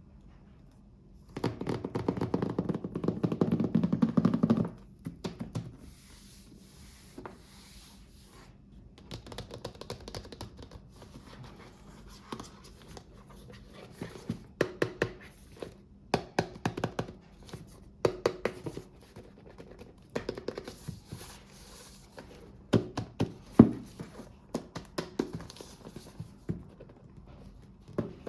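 Hands unboxing small toys: a few seconds of loud crinkling of packaging about a second in, then scattered taps, clicks and rustles as the pieces are handled.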